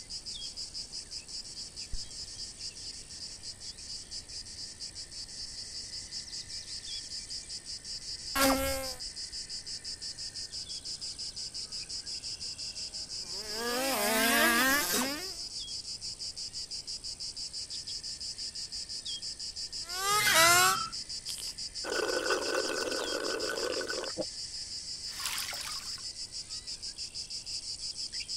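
A steady, high, finely pulsing chorus of insects chirring in a grassy field. A few short, wavering pitched sounds break in about a third of the way through, around the middle, and about two-thirds through.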